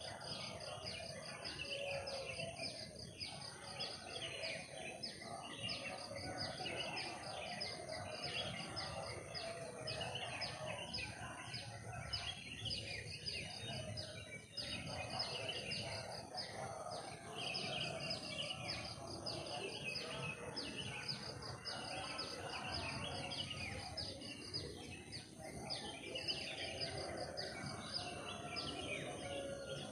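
Forest ambience: many birds chirping in rapid, overlapping calls, over a steady high insect drone.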